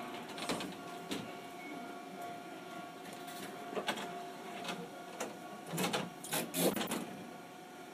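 Chikuho Electric Railroad 3000-series tram running, heard from on board: a steady faint whine under scattered clacks and knocks from the wheels and car body, with a cluster of louder clacks about six to seven seconds in.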